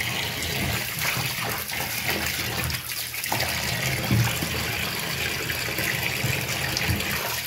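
Tap water running into a stainless steel sink that is part full, with hands splashing and rubbing pieces of goat meat as they wash them.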